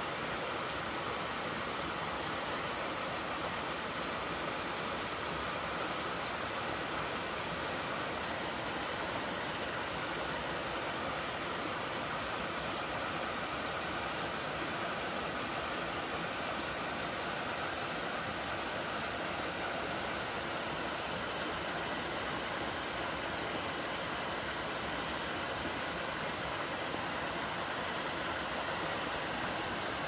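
Mountain stream water rushing steadily down a small slide waterfall over a sloping rock slab and through a little cascade between boulders.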